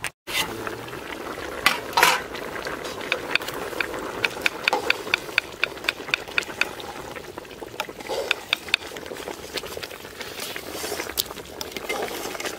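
Fish curry bubbling in a metal pot while a ladle stirs it, scraping and knocking against the pot. A quick run of clicks comes in the middle, about four or five a second.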